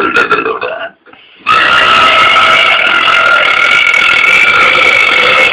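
A man's long, loud burp, held unbroken for about four seconds after a short pause, following the tail of a shorter one that fades out in the first second.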